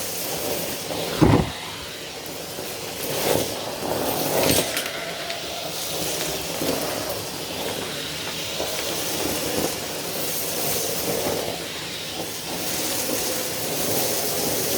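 A vacuum cleaner running with a steady rushing hiss, with a sharp knock about a second in and a lighter one a few seconds later.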